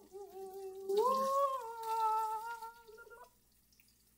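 A person humming without words: a drawn-out tone that rises in pitch about a second in, holds a steady note, and stops about three seconds in.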